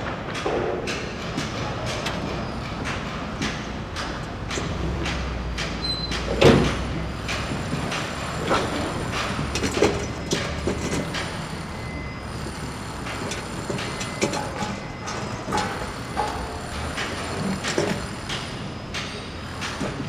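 Construction site ambience: irregular sharp knocks and bangs from work on the site over a steady low rumble of machinery, with the loudest bang about six and a half seconds in.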